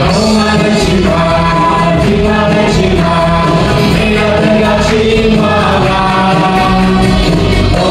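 A church worship band playing a praise song: several voices singing together over acoustic and electric guitars, bass, keyboard and drums, with a steady beat.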